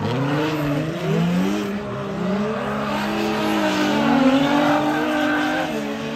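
Drift car engine revving, its pitch climbing and dropping again and again through the gears.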